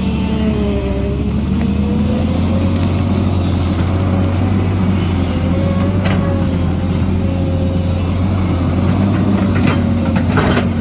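Excavator's diesel engine running steadily under load, with a wavering whine over the engine note and a few sharp knocks near the end.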